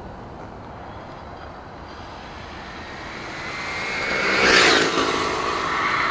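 1/5-scale Redcat Rampage MT RC monster truck, geared with a 26-tooth pinion, passing at speed on a full-speed run. Its drivetrain whine grows louder and slightly higher as it approaches, peaks about four and a half seconds in as it goes by, then drops in pitch and fades.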